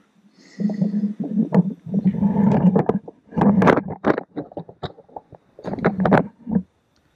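Outboard flywheel being turned and shifted by hand on the crankshaft: bursts of rumbling scraping with sharp metal clicks, stopping and starting about every second.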